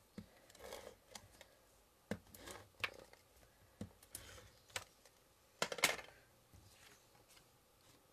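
Cardstock and paper being handled and placed on a desk: scattered light taps and clicks with short rustling slides of card, the loudest cluster about six seconds in.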